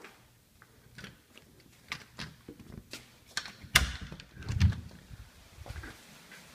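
A front door being opened: scattered handle and latch clicks, then a sharp knock and a low thud about four seconds in.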